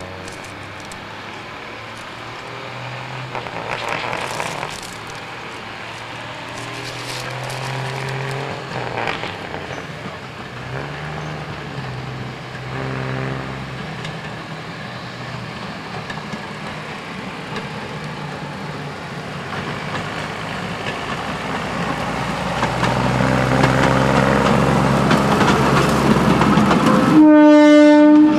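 A Galloping Goose rail motor car's engine runs as it approaches along the narrow-gauge track, getting louder over the last several seconds. About a second before the end its horn starts, one steady, loud note.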